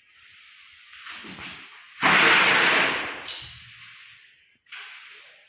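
Broom sweeping a dusty floor: a few rough swishing strokes, the longest and loudest about two seconds in, a shorter one near the end.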